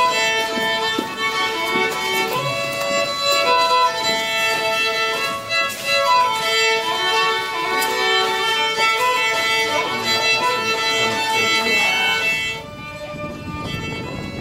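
Fiddle playing a melody; it stops about thirteen seconds in, leaving a fainter noisy background.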